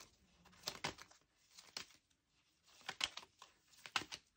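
Tarot cards being handled and drawn from the deck: a few faint, short card flicks and slides, roughly a second apart.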